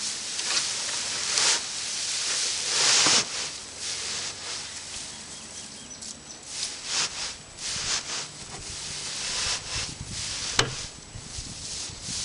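Loose dry hay rustling in irregular bursts as it is stuffed by hand into a homemade box hay baler and pressed down, with one sharp knock near the end.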